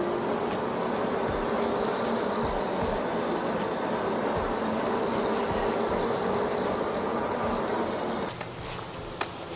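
Steady riding noise from an electric-assist bike under way: wind and tyre rush with a faint motor hum, easing off about eight seconds in.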